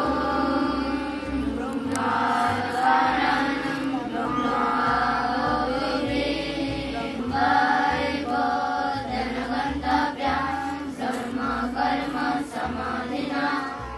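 A group of children chanting a mealtime prayer together in unison, a sustained sing-song recitation.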